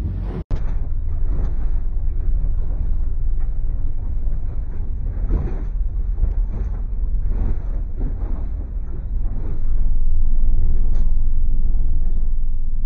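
A 5 hp outboard motor drones steadily, heard from inside the cabin of a Com-Pac 23 sailboat underway, with water rushing along the hull in uneven surges. The sound grows a little louder near the end.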